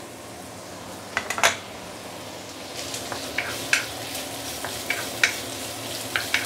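Julienned ginger, spring onion and garlic sizzling in hot sesame and vegetable oil in a wok as they are sautéed, with a spatula repeatedly clinking and scraping against the wok as it stirs. The sizzle grows a little louder about three seconds in.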